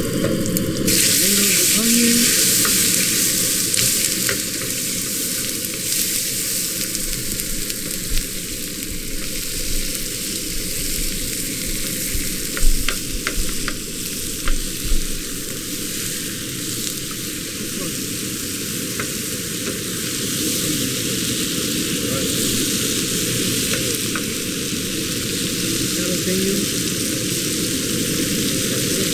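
Tomato wedges and onions frying in hot oil in a skillet, sizzling steadily and turning louder about a second in as the tomatoes go into the pan. A wooden spoon stirs them, with a few sharp knocks near the middle.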